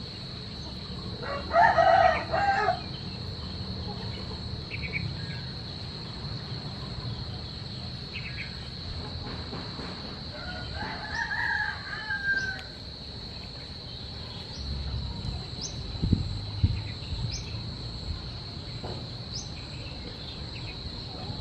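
A rooster crowing twice, a short crow about a second and a half in and a longer one about ten seconds in, over a steady high-pitched insect drone.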